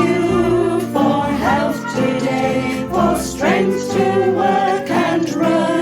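Praise music: voices singing together with instrumental accompaniment.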